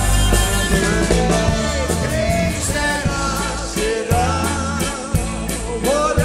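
Live rock 'n' roll band playing, with electric guitars, bass, piano and drums keeping a steady beat.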